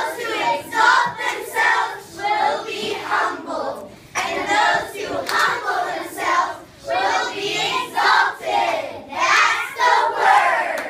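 A group of children's voices in unison, singing a rhythmic chant in short pulses about every half second, with no instrument behind them.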